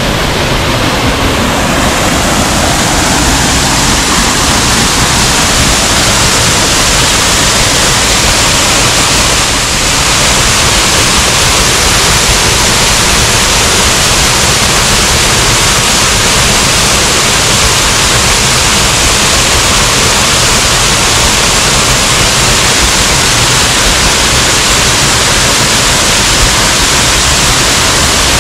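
Girlevik Waterfall's water falling, a loud, steady, even rush of noise.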